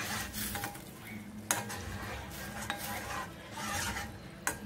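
Metal spoon stirring a thick ginger curry in a stainless steel kadai, scraping and clinking against the pan, with sharper clinks about one and a half seconds in and near the end.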